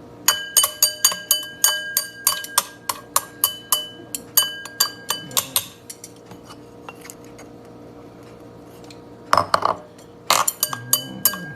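Rapid clinks of a utensil tapped against a ringing dish, about four a second for some five seconds. After a pause come a few louder clatters near the end.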